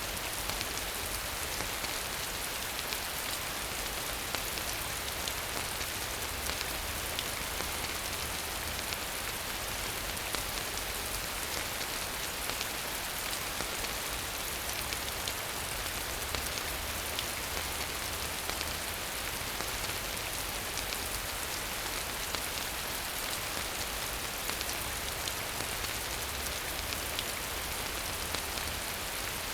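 Steady rain falling, an even hiss scattered with the ticks of individual drops hitting close surfaces.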